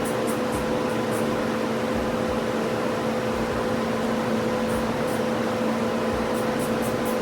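Steady machine hum with a whir, like a fan or motor running, with runs of faint quick ticking near the start and again near the end.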